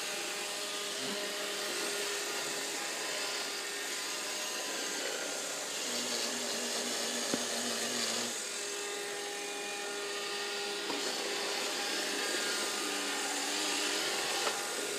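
Robot vacuum cleaner running with a steady whir while it carries a small child, with faint whining tones that come and go.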